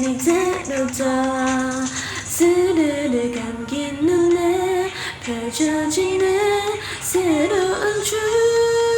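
A woman singing a K-pop song, the melody moving in short steps from note to note, then settling into one long held note about eight seconds in.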